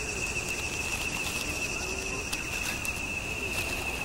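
Outdoor nature ambience: an insect trilling steadily at one high pitch over a low background hiss, with a few faint, soft low calls.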